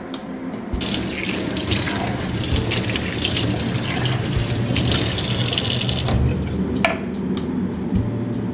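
Tap water running into a sink, turned on about a second in and shut off about six seconds in.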